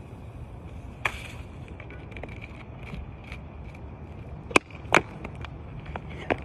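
Handling noise from a plastic 2-litre soda bottle as chlorine is poured in and the cap worked: a brief rustle about a second in, light ticks, then two sharp clicks a little after the middle. Running footsteps on asphalt start near the end.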